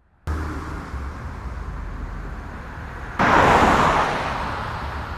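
Outdoor background noise: a steady low rumble and hiss that cuts in suddenly, with a louder rush starting abruptly about three seconds in and fading over a second or so.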